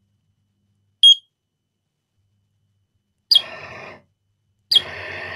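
Raymarine ST2000+ tiller pilot: a short beep from its keypad about a second in, then its electric drive motor running as it pushes the push rod out. The motor runs for under a second, stops, then starts again near the end and keeps running steadily, now that the supply gives it enough current.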